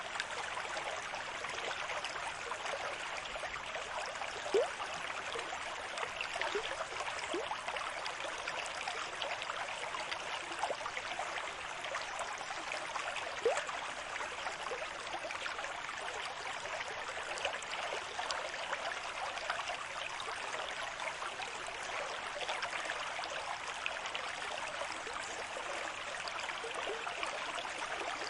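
Running water trickling and bubbling steadily at an even level, with a few louder plinks and gurgles, the loudest about four and a half and thirteen and a half seconds in.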